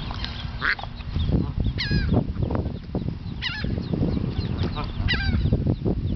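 Canada geese giving short honking calls, three in a row about a second and a half apart, over a low rumble of wind on the microphone.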